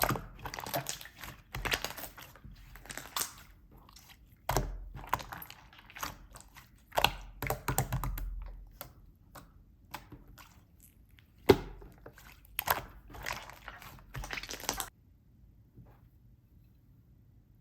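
Clear slime being squeezed, pressed and stretched by hand, giving irregular bursts of sticky clicks and crackling pops. The handling stops near the end.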